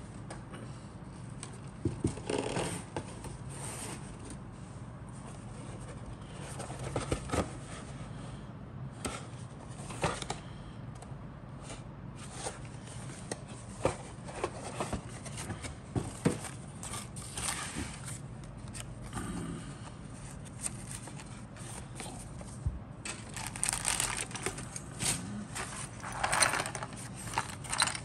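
Cardboard model kit box being handled and opened by hand: scattered taps, clicks and scrapes, turning into denser rubbing and scraping of cardboard on cardboard in the last few seconds, over a faint steady low hum.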